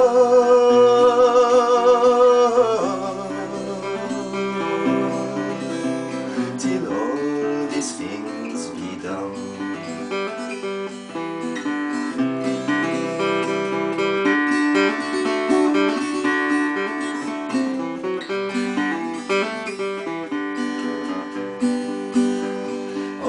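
A man's voice holds a sung note with vibrato for the first few seconds, ending a verse. Then a solo acoustic guitar, plucked, plays an instrumental interlude between verses.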